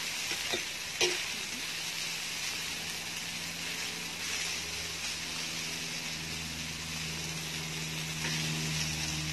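Chicken, garlic and crab sticks sizzling on a round grill pan: a steady frying hiss, with a single sharp tap about a second in. A low steady hum comes in about halfway through and grows louder.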